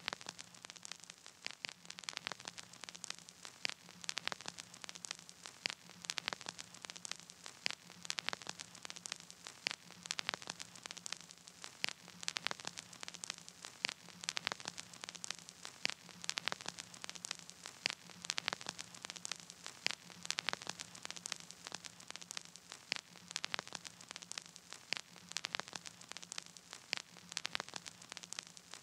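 Faint crackling static with no music: irregular clicks and pops, a few each second, over a low steady hum and hiss.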